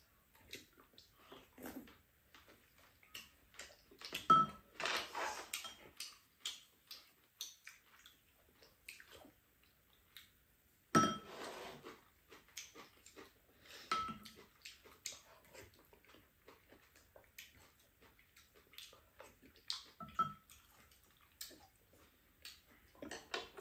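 Spoons and chopsticks clinking and scraping against ceramic bowls during a meal. Scattered light ticks are broken by four louder ringing clinks, the loudest about four and eleven seconds in.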